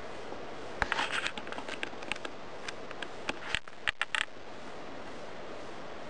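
A scatter of sharp clicks and scratchy scrapes over a steady hiss, densest about a second in and stopping a little after four seconds.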